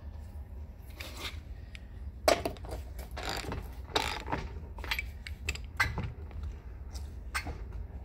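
Scattered metallic clicks and clinks of a nut and washer being tightened onto a small wagon wheel's axle hub, with the sharpest knock about two seconds in.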